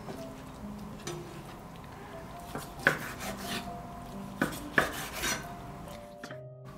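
A freshly sharpened chef's knife slices through raw pork neck on a wooden cutting board. The blade knocks sharply on the board a few times in the second half, loudest about three seconds in and twice more a little later.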